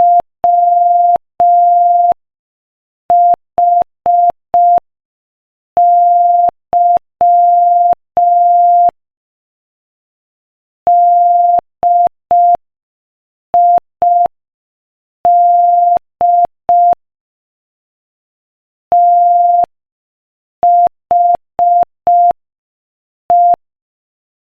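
Morse code sent as a single-pitch sine-wave beep at 5 words per minute, in short dots and long dashes with silent gaps between letters and words. The marks spell out "WHY DID THE", the opening of a joke.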